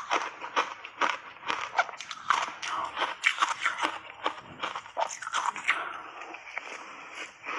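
Someone chewing a mouthful of crunchy shaved ice coated in matcha powder and milk cream: a steady run of crisp, irregular crunches, several a second.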